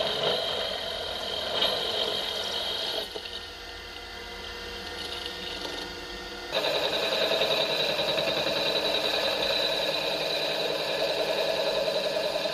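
Milling machine spindle running with a steady high whine as a drill and then a boring tool cut into a metal motor-mount plate. The sound changes abruptly twice: it drops quieter about three seconds in and comes back louder, with a fine rattle, about six and a half seconds in.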